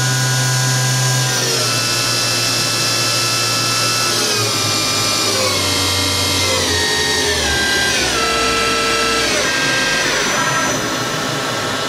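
Doosan DNM-400 vertical machining center's 8,000 RPM spindle whining as it is slowed down from top speed, its pitch falling in a series of steps.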